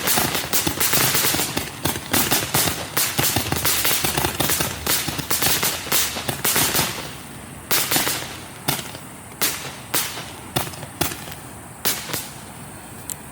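Black Cat Liberty Cannon firework going off: a dense run of crackling reports that thins after about seven seconds into scattered single bangs before it finishes.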